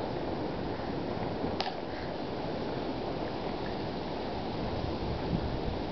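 Steady wind rumble on the microphone, with a single sharp click about one and a half seconds in.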